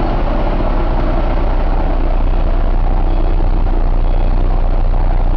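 Cummins ISX inline-six diesel truck engine idling steadily, a deep, even running sound.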